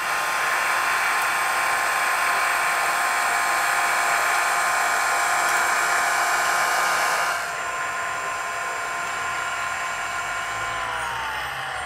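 Electric motors of a radio-controlled Hako street sweeper model whining steadily while its side brushes spin over the asphalt. About seven seconds in the sound drops a little. Near the end the whine glides down in pitch.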